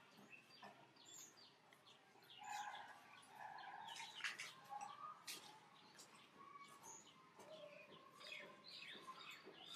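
Faint chirping of birds: many short calls scattered throughout, over a quiet background.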